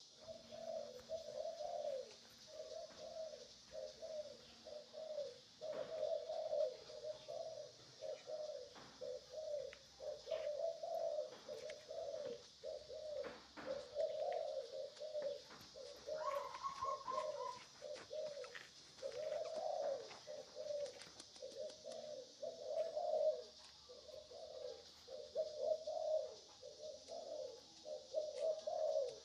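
A bird repeating a short, hollow cooing note over and over, about two a second, with a steady high hiss behind it.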